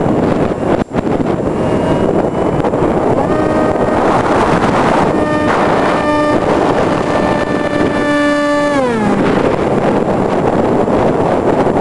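Wind rushing over the microphone of a camera riding on a Multiplex EasyStar RC plane in flight. The electric motor's whine comes in about three seconds in, holds a steady pitch, then drops in pitch and fades out about nine seconds in.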